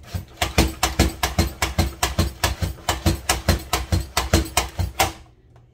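Pampered Chef Rapid Prep Mandoline being pumped by hand: a fast, even run of plunger strokes clacking as they push lettuce through the blade, about four or five a second, stopping abruptly about five seconds in.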